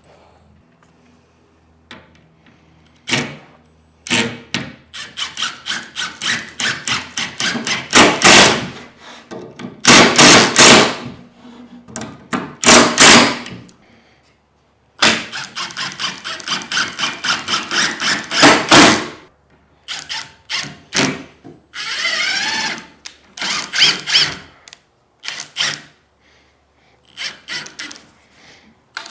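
Cordless power driver driving screws, in short repeated pulses broken by several longer, louder runs, with gaps between screws.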